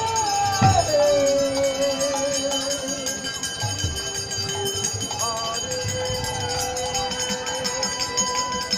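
Bengali devotional folk ensemble playing: long held melody notes with vibrato over harmonium, with barrel-drum strokes and a steady jingling.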